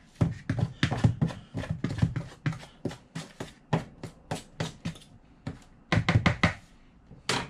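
A fork and knife tapping and scraping against a mixing bowl in quick irregular strokes, about three a second, as shortening is cut into flour for pie dough. A few sharper taps come together a little after six seconds.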